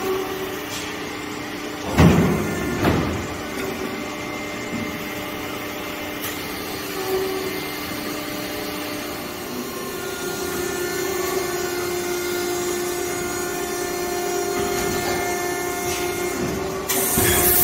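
TRUMPF TruPunch 2020 CNC turret punch running under power: a steady machine hum with several held tones, two heavy knocks about two and three seconds in, and a loud rushing hiss starting near the end.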